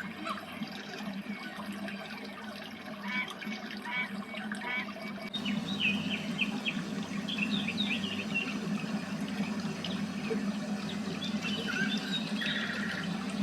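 Waterfall rushing steadily, with small birds chirping over it in short bursts. About five seconds in the sound changes abruptly and gets slightly louder, as at a join between two recordings.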